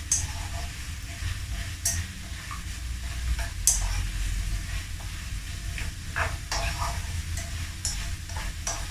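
Dried anchovies (ikan bilis) deep-frying in hot oil: a steady sizzle with scattered sharp pops.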